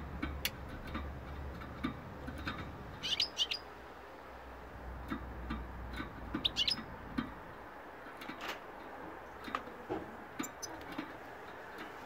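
Caged European goldfinch giving short chirping calls: two quick clusters of several high notes about 3 and 6.5 seconds in, with scattered single chirps between.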